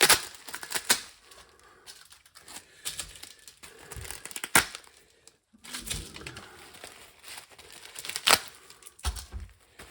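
Packing paper crumpling, crinkling and tearing as wrapped pieces of model railway track are unpacked, broken by a few sharp clicks.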